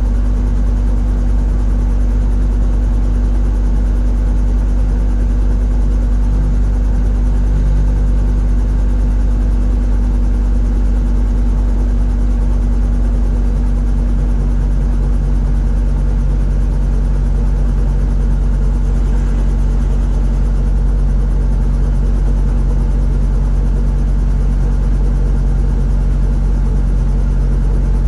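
Robinson R22 Beta II helicopter's four-cylinder Lycoming piston engine and rotor system running steadily after start-up: a loud, continuous low drone heard from inside the cockpit, its tone shifting slightly about halfway through.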